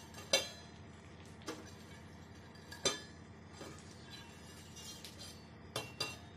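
Metal kitchen utensils clinking against a steel kadai and stovetop: about five sharp clinks with short ringing, the loudest just after the start and two close together near the end.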